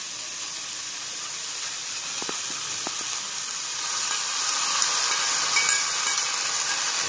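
Chopped vegetables sizzling in hot oil in a kadai, a steady hiss that grows a little louder partway through as diced raw potatoes go in. There are two light taps about two and three seconds in.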